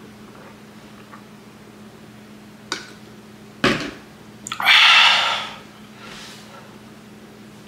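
A plastic drink bottle is set down on a wooden table with a sharp knock. Just under a second later comes a loud breathy burst lasting about a second. A low steady hum sits underneath.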